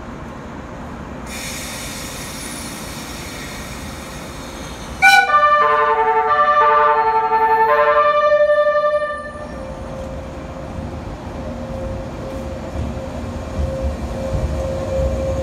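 A JR East 485-series train sounds its musical horn, a short tune of several held notes lasting about four seconds. The train then starts to pull away, its low running rumble and a steady motor tone building.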